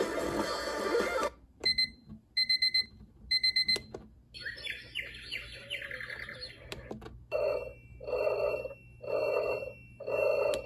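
A digital alarm clock's speaker playing its built-in wake-up sounds one after another: music that cuts off about a second in, three quick groups of electronic beeps, a couple of seconds of birdsong chirping, then four pulsed tones about a second apart over a steady high tone.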